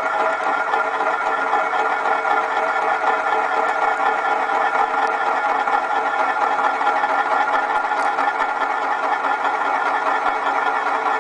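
A drinking glass spinning on the rim of its base on a hard, shiny tabletop, its edge rolling round against the surface in a steady, continuous rattling whir with a ringing tone.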